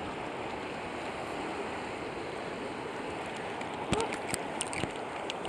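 Steady rush of creek water flowing over riffles, with a few short clicks and a brief squeak about four seconds in.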